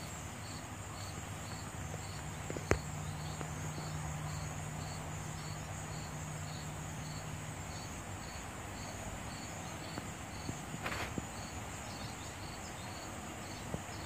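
Crickets chirping in an even rhythm, about two chirps a second, over a steady high-pitched insect hum. A sharp click a few seconds in and a brief rustle near the end.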